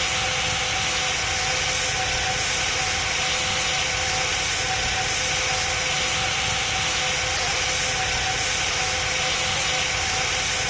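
Cabin noise of an Airbus A319 in flight: the steady rushing of the jet engines and airflow, with two steady tones running through it.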